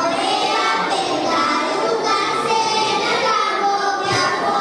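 A group of young girls singing a song together into microphones.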